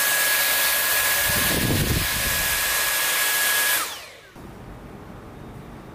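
Dyson cordless stick vacuum running with its crevice tool on, a loud steady rush of air over a high constant motor whine, with a brief deeper rush about halfway through as the nozzle works along a headboard. The motor winds down and stops about four seconds in.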